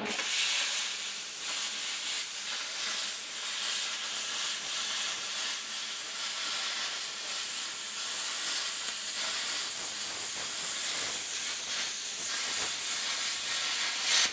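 Oxford CUTmaker 551 air plasma cutter's arc cutting through 8 mm mild steel: a steady hiss of arc and compressed air with a thin high whine on top, firing abruptly at the start and stopping abruptly near the end.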